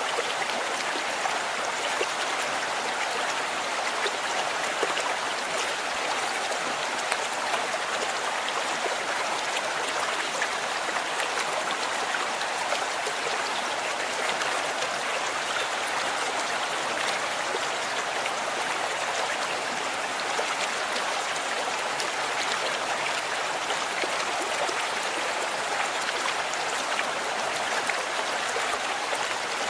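River water running steadily over rocks and small falls, a constant rushing flow with faint splashes.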